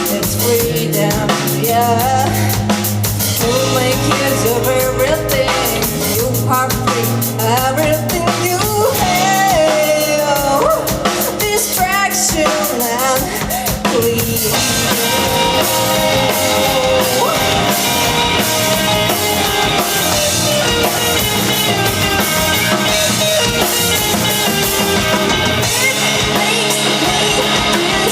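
Live rock band performing a song, driven by a drum kit with kick drum and rimshots under pitched melody lines. About halfway through, the band gets fuller and brighter, with a heavier wash of cymbals.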